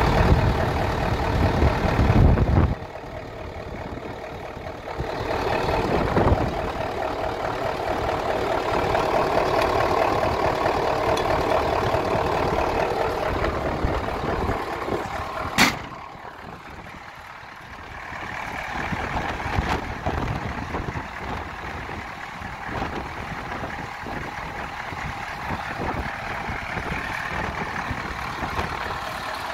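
Mercedes-Benz SK 2544 truck's diesel engine idling steadily, with a loud low rumble in the first couple of seconds and a single sharp click about halfway through.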